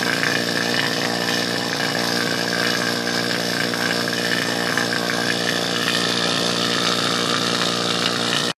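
HVAC vacuum pump running steadily, pulling a vacuum on the new system through charging hoses on the service valves. The sound cuts off suddenly near the end.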